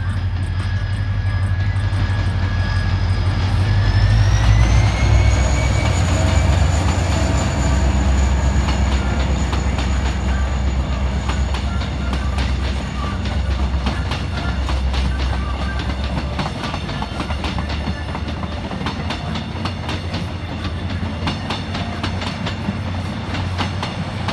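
Diesel locomotive hauling a Mugunghwa-ho passenger train past at speed: a deep engine rumble with a high whine that rises in pitch about four seconds in. Then a long string of coaches runs by, the wheels clicking rapidly over the rail joints as the rumble fades.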